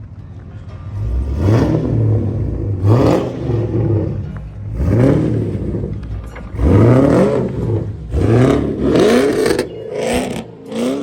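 Pontiac G8 GT's V8 engine revving in a series of short bursts, its pitch rising quickly each time, about every one and a half to two seconds.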